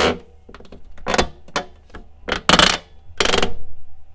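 Plastic dust-lid hinges of a GPO PR50 turntable creaking as the lid is moved, with several harsh creaks about a second apart. The hinge is incredibly creaky.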